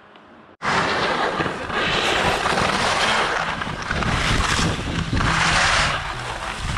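Rush of wind on the microphone and skis hissing and scraping over packed snow at speed. It starts abruptly about half a second in and swells and eases throughout.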